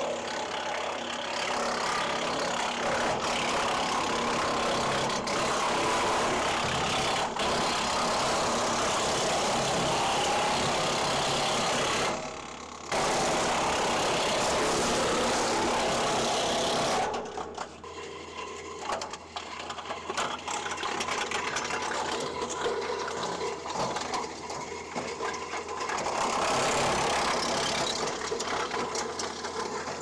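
A Woodland Mills WC68 6-inch PTO wood chipper, driven by a tractor, chewing through a small, dry, somewhat rotten ash branch: a loud, steady grinding with a brief dip about twelve seconds in. After about seventeen seconds the chipping stops and the machine runs on more quietly and unevenly, the sort of fine, dry material that the owner says gets bound up in the rotor.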